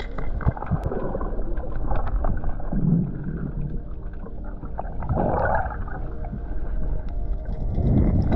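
Muffled underwater sound picked up by a submerged camera: a low rumble of moving water with gurgling swells, about three of them spread through.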